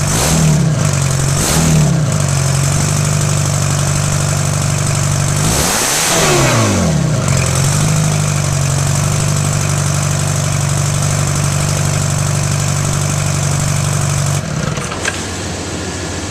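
Rebuilt Detroit Diesel 4-53 two-stroke diesel running at idle. It is blipped twice early on and then revved up and back down once. The engine tones stop about fourteen and a half seconds in, as if the engine is shut off.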